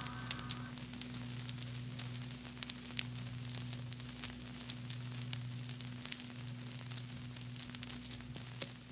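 Faint steady low hum with scattered crackle and static clicks. The last of the music fades out in the first second.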